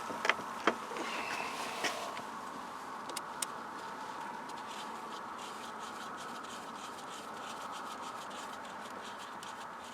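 Light clicks and taps of small metal hardware being picked up and handled: three within the first two seconds and two fainter ticks about three seconds in, over a steady faint hiss.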